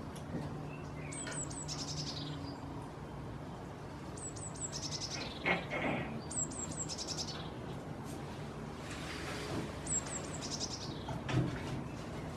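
A songbird singing the same short phrase again and again, about every two to three seconds: a few very high notes and then a fast trill falling in pitch. Under it runs a steady hiss of rain on the goat house, with one short louder noise about halfway through.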